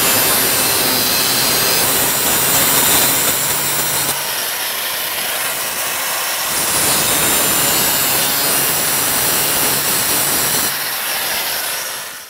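Handheld abrasive cut-off wheel grinding a notch through the sheet-steel bed lip of a pickup, a loud, steady grinding whine. It eases slightly for a couple of seconds in the middle, then bears in again and cuts off abruptly at the end.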